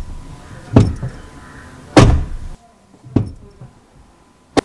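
A Tata Nexon's rear car door being shut repeatedly, heard from inside the cabin. Two heavy slams come about a second apart, the second the loudest, then a lighter thud and a sharp click near the end.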